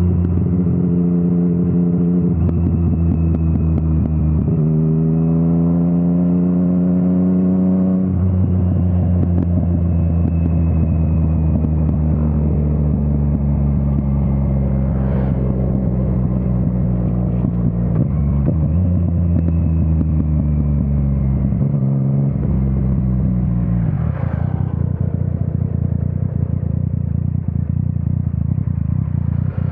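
Yamaha MT-09 three-cylinder engine through an Akrapovič exhaust, heard from the rider's seat with wind rush. The engine note rises under acceleration, breaks at a shift about eight seconds in, then holds and slowly eases. Near the end the throttle comes off and the note drops away.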